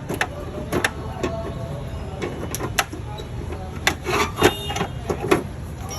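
Irregular sharp clicks and knocks of hand work on a car bumper, a few close together about four to five seconds in, over a steady low hum.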